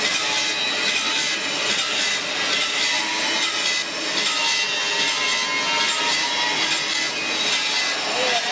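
Circular saw blade sharpening machine grinding the teeth of a high-speed steel blade: a steady, loud grinding hiss that pulses about twice a second as the teeth are ground one after another.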